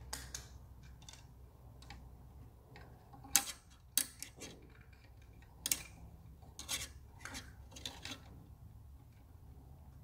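Irregular small clicks, taps and rubbing as hands handle a small plastic housing, wire and screw, with about a dozen sharp ticks scattered through.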